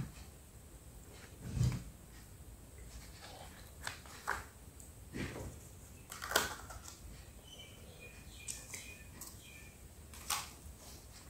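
Quiet handling noises from a small plastic dip cup as its lid is worked off: scattered clicks and crackles, the sharpest about six seconds in, with a soft thump about two seconds in.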